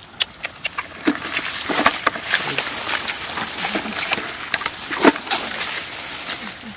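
Irregular rustling and crackling with many sharp snaps and clicks, as of hands working through dry rice stubble and mud.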